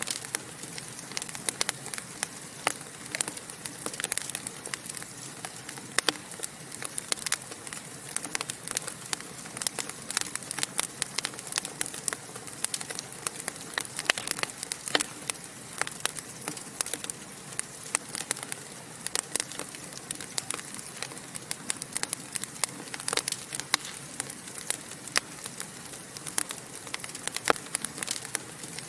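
Wood logs burning in a fireplace, crackling and popping many times a second over a steady hiss.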